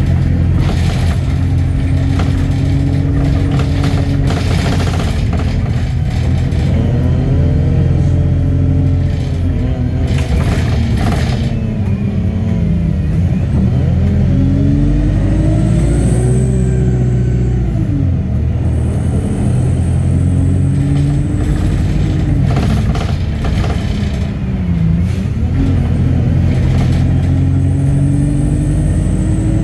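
Inside a service bus on the move: the engine runs loudly, its note climbing and dropping several times as the bus pulls through the gears. Interior rattles clatter now and then over the engine.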